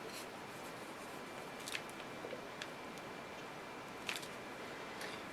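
Quiet room hiss with a few faint, sharp clicks and taps, about three of them, as small craft tools and a clay piece are handled on the work surface.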